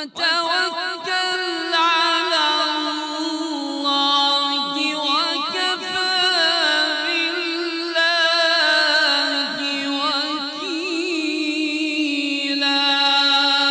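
A man's voice reciting the Quran in the melodic mujawwad style: one long phrase of held notes with wavering ornaments.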